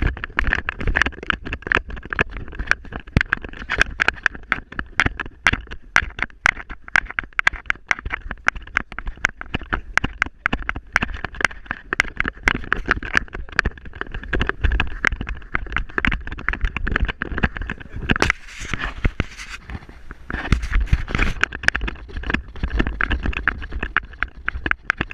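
Body-mounted GoPro Hero 3 Black on a running dog's vest, knocking and rattling in quick, irregular strikes with each stride, over a low rumble of wind and rubbing on the microphone. A short rustling hiss comes about three quarters of the way through.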